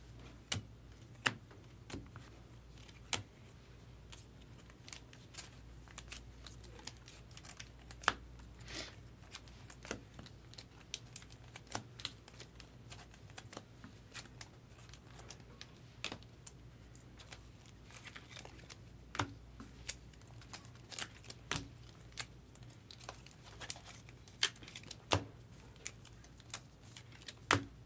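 Trading cards being flicked through by hand and dropped onto stacks: scattered light clicks and taps of card on card at an uneven pace, over a low steady hum.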